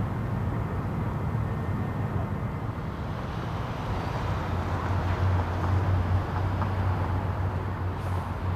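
Airbus A319 airliner's jet engines running at taxi power: a steady low rumble with a hiss above it. A low hum in the rumble grows stronger about halfway through.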